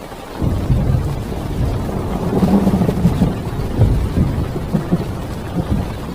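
A thunder rumble heard from inside a parked car, rising about half a second in and rolling on with several swells over heavy rain drumming on the car.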